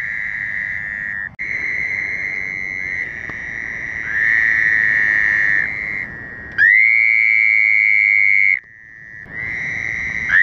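Chorus of Fowler's toads calling: overlapping high-pitched screams held steady for a second or two each. One toad close by gives a louder, two-second call about six and a half seconds in, and a second loud call begins near the end.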